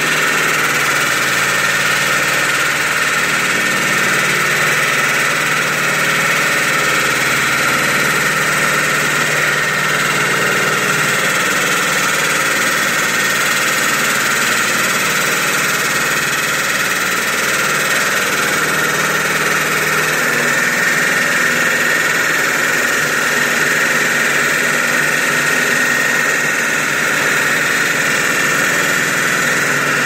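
Remote-controlled concrete floor saw running steadily at constant load, its blade cutting concrete with a continuous grinding whine over the machine's drone. The lowest part of the hum drops slightly about two-thirds of the way through.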